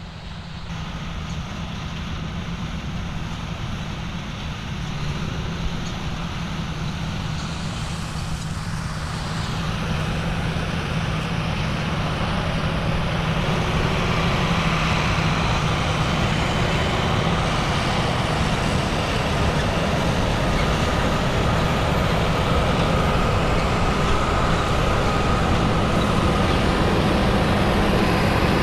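Large diesel harvest machinery running with a steady low engine drone and a high mechanical whine, growing steadily louder as it draws closer.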